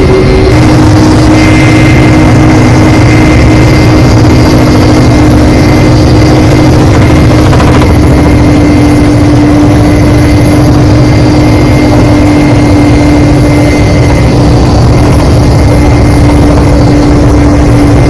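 Loud, steady drone of an aircraft in flight, a dense low rumble with a steady hum running through it.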